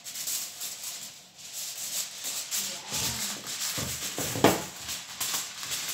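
Aluminium foil being unrolled and crinkled as it is spread over a metal baking tray: a continuous crackling rustle, with one sharp louder crackle about four and a half seconds in.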